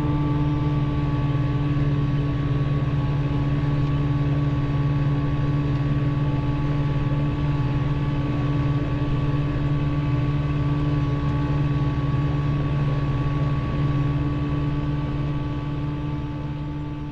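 Tractor engine and mower running steadily at constant speed, heard from inside the tractor cab, with a steady hum and a fainter whine; the sound fades out near the end.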